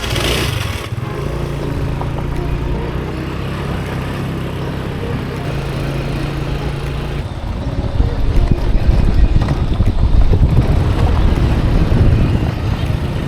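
Motorbike engine running at a steady pitch while riding along, growing louder and rougher a little past halfway through.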